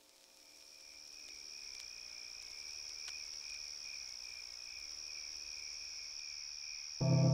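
A steady, high-pitched chorus of crickets fades in and holds on. Near the end, a loud, deep, sustained musical tone sets in over it.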